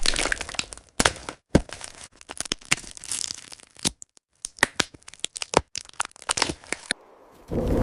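Wood cracking and splintering: an irregular, rapid run of sharp cracks and snaps for about seven seconds, stopping briefly before a steady rushing noise starts near the end.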